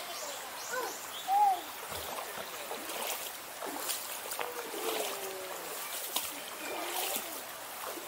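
Shallow stream water running and splashing, with scattered splashes from about three seconds in. A brief call about a second and a half in is the loudest moment, among other faint short calls.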